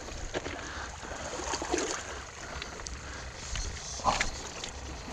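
Low, steady wash of water against a concrete-block breakwater, with a few light clicks and knocks; the loudest knock comes about four seconds in.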